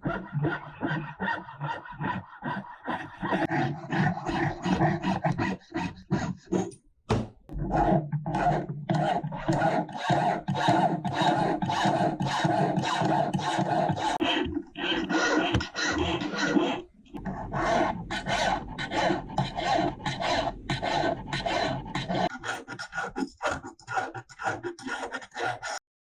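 A hand file rasping in quick repeated strokes, likely on the metal of a cast ring, with short pauses a few times.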